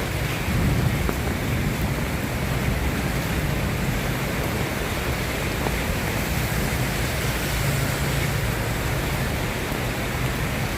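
Steady rain falling, an even hiss with a low rumbling underneath.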